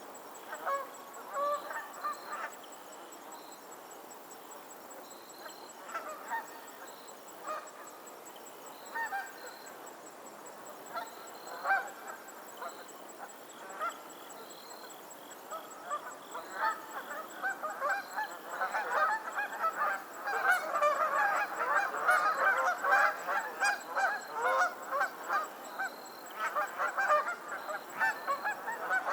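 Geese honking on a lake: scattered single honks at first, then a dense stretch of many geese calling over one another through much of the second half, thinning out again near the end.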